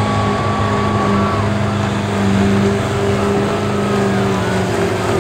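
Ford Super Duty pickup's diesel engine running hard under load as it drags a weight-transfer pulling sled: a steady engine drone with a held whine above it, the pitch shifting near the end as the pull winds down.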